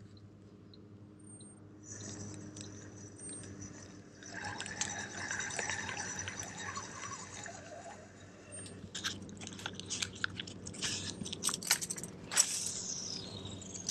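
Crackling, rustling handling noise as the angler shifts the rod and gear in the boat, with sharp clicks through the second half. Near the end comes a short whoosh falling in pitch as the rod swings through a cast.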